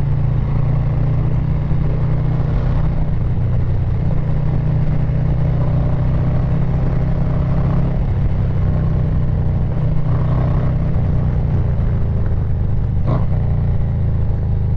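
Milwaukee-Eight 117 V-twin of a Harley-Davidson Low Rider S running through an aftermarket SP Concepts Big Bore 4.5 exhaust while riding, a loud, deep, steady exhaust note held at an even pitch. A brief sharp click is heard near the end.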